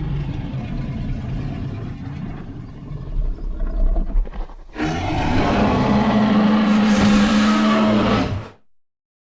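Giganotosaurus roar sound effect: a low rumbling growl with a few short louder grunts near the middle, then a loud full roar for about four seconds that cuts off abruptly.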